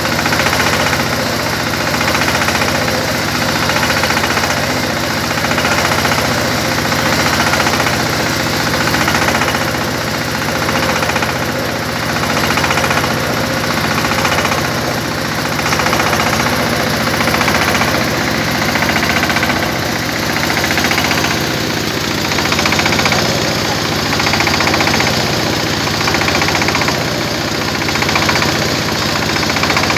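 Silage baler-wrapper machine running steadily, its engine noise swelling and easing every two to three seconds.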